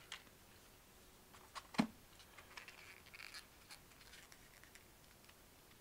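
Faint handling sounds as items are taken out of a foam-lined presentation box: a few small clicks and light rustles, with one sharper knock a little before two seconds in.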